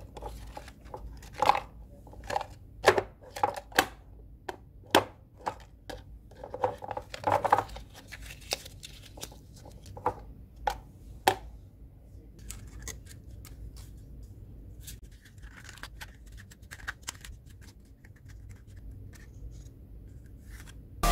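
Hands handling a small plastic toy bin and its contents: a run of sharp clicks and knocks from the hinged plastic lid and the bin on the table, loudest over the first dozen seconds, then quieter rustling and scraping of paper and a thin cut-open aluminium drink can.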